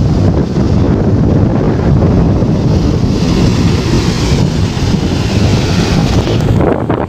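Sea waves washing onto the shore, with heavy wind rumbling on the microphone. The hiss of the wash swells for a few seconds in the middle and then falls away near the end.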